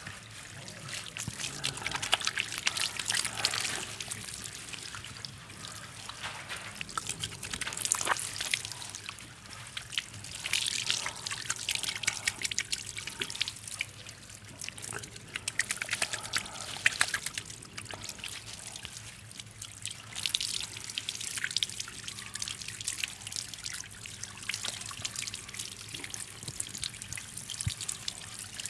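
Water from a handheld sink sprayer splashing over a man's head and trickling into the basin, with a hand rubbing through the wet hair. The splashing comes and goes in swells every few seconds.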